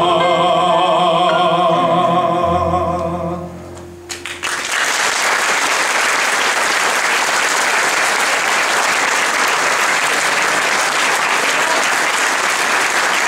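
A male solo singer holds a final long note with vibrato over a sustained low accompaniment, and the note ends about three and a half seconds in. After a brief lull, steady applause takes over.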